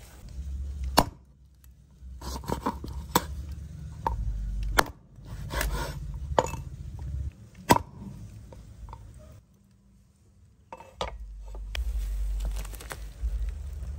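Heavy cleaver chopping raw chicken feet on a thick wooden chopping block: about a dozen sharp, irregular chops over the first eight seconds, some in quick runs. Near the end, a low steady rumble from the pot boiling on its fire.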